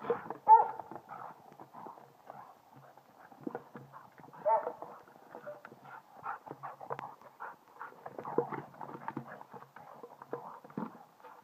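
Green plastic bowl knocking and clattering in quick irregular bursts as a Border Collie noses, mouths and carries it, with short squeals about half a second in and again about four and a half seconds in.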